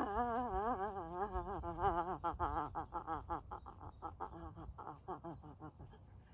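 A woman's open-mouthed, wordless vocal sound, an 'ahh' let out while shaking the body: held with a wobbling pitch at first, then breaking into quick stuttering pulses that fade out near the end.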